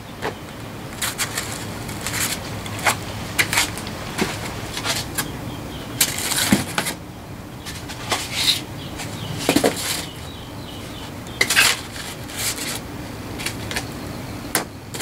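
Piano hinge and door panel being handled during a test fit: irregular metallic clinks, taps and light scrapes, with a few sharper knocks through the middle.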